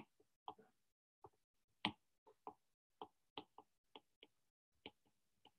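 Faint, irregular clicks and taps of a stylus pen on a tablet while handwriting, some fifteen light ticks with uneven gaps, the sharpest right at the start.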